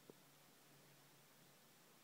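Near silence: faint steady low hum of room tone, with one soft click just after the start.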